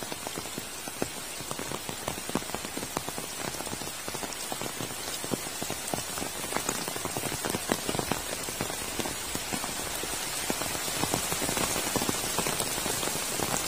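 Heavy tropical rain falling steadily, with many individual drops ticking sharply close by over the constant hiss of the downpour.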